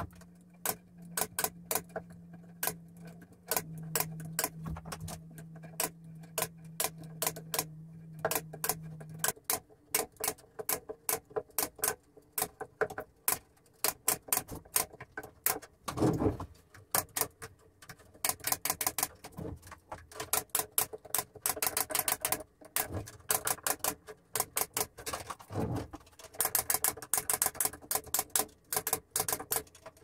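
Pneumatic staple gun firing staples through wire mesh into a wooden frame, shot after shot in quick runs of several a second with short pauses between. A low steady hum runs under the first nine seconds, and two dull thuds come about halfway through and near the end.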